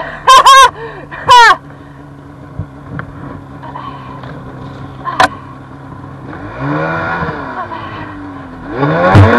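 Snowmobile engine running as the sled pushes through brush, its revs rising and falling about seven seconds in and climbing again near the end. Two loud, short, high-pitched sounds come in the first second and a half, and a sharp crack about five seconds in.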